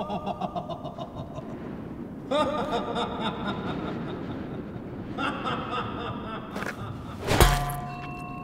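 A man's snickering laughter in three short bouts, then, about seven seconds in, a loud deep boom hit with a swish, leaving a held tone ringing after it.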